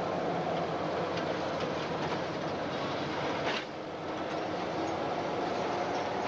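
A train rolling slowly seen from on board: wheels click over rail joints and points above a steady running drone. One sharp crack comes about three and a half seconds in.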